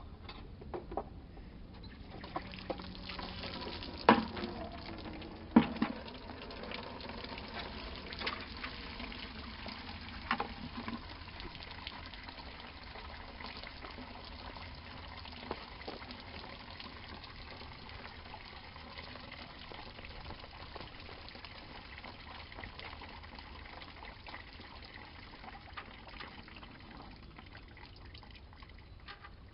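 Old coolant running out of a Jeep Cherokee XJ's disconnected lower radiator hose into a 5-gallon bucket: a steady splashing stream that builds about two seconds in and eases slightly near the end. Two sharp knocks come a few seconds in and are the loudest sounds.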